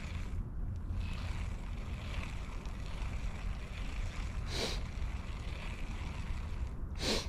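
Steady low rumble of wind buffeting the microphone, with two brief swishes about four and a half and seven seconds in.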